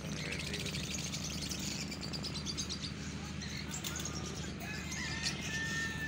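Many small caged birds chirping and chattering together in rapid high twitters, with short whistled notes toward the end, over a steady low hum.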